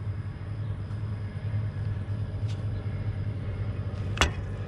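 Large channel-lock pliers slowly squeezing a brake caliper piston back into its bore, over a steady low rumble, with one sharp metallic click about four seconds in.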